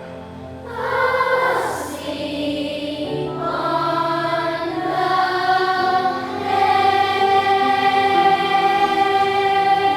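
Student choir singing a holiday song, swelling about a second in and holding a long note through the second half.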